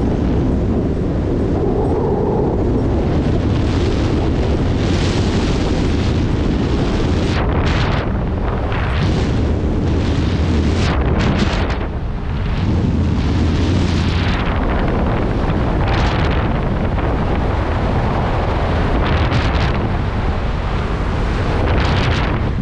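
Wind buffeting the skydiver's camera microphone while descending under an open parachute: a loud, continuous rushing roar with a heavy low rumble, swelling and easing in gusts.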